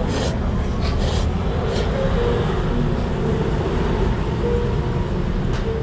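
Steady low rumble of a ramen shop's background noise, from its kitchen and ventilation, broken by a handful of brief sharp noises.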